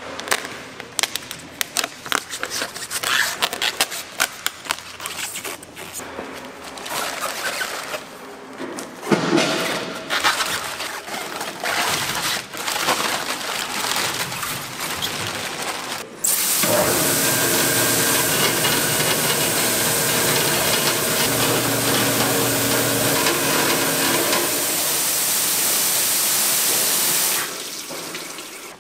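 A plastic sack of Korean radishes being cut open and the radishes tumbling onto a washer's brush rollers, with rustling and irregular knocks. About 16 seconds in, the brush-roller vegetable washer starts suddenly, running steadily with spraying water and a machine hum, and it cuts off shortly before the end.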